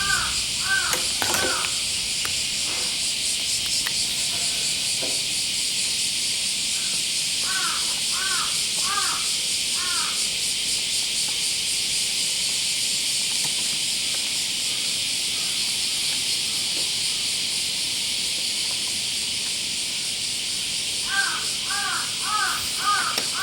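Crows cawing in short runs of several calls, a few times, over a steady high hiss.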